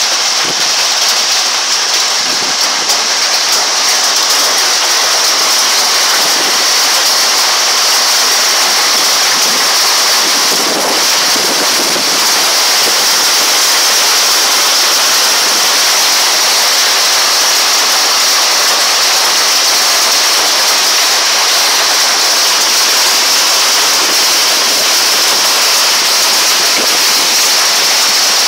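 Hail and heavy rain pelting down in a hailstorm: a loud, steady, dense hiss made of many small impacts.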